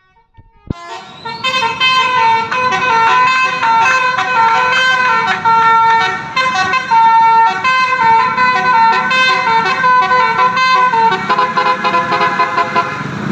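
Basuri-type telolet musical horn on a bus playing a tune of held notes that step from pitch to pitch. It starts with a click about a second in and plays almost to the end.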